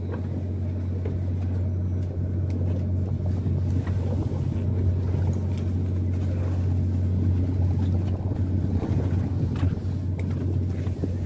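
A fishing boat's engine running steadily, a low even hum, with a few faint clicks on top.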